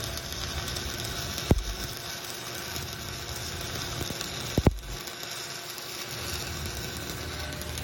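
Stick-welding arc burning on a steel pipe branch joint, a steady hiss, with two sharp pops about a second and a half in and again near five seconds.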